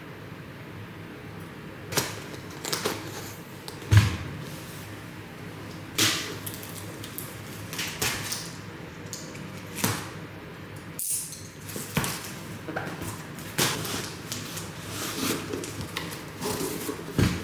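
Irregular knocks, clicks and rustles of parts and packaging being handled and set down, with one louder thump about four seconds in, over a steady background hiss.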